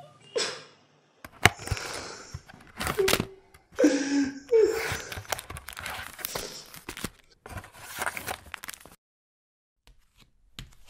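Cloth and paper tearing and crumpling, with knocks and a few short gasps: flower garlands and a bedsheet being torn apart. The sounds stop about nine seconds in.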